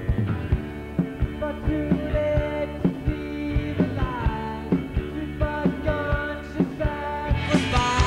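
Live rock band playing: drums keep a steady beat under electric guitars, bass and a singing voice. The high cymbal wash is absent for most of the passage and comes back in near the end as the full band picks up.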